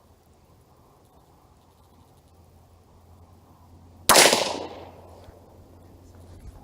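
A single 300 Blackout rifle shot about four seconds in, a sharp report that rings away over about half a second. The load is below the speed of sound (all rounds 940–1071 fps), so there is no separate supersonic bullet crack.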